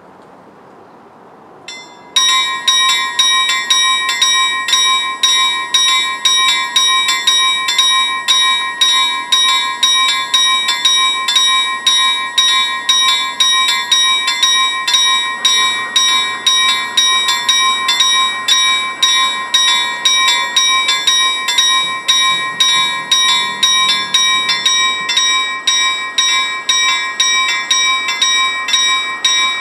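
Railway level-crossing warning bell starting about two seconds in and ringing steadily at about two strokes a second, warning of an approaching train.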